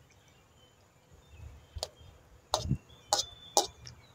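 Metal fork clinking against a black metal pan four times in the second half, the last two with a short ring, as chicken tenders are pushed down into the stock.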